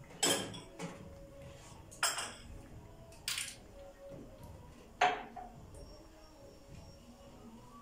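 A whisk knocking against the sides of a cooking pot while thick pudding is stirred: four separate clinks a second or more apart, the loudest about five seconds in.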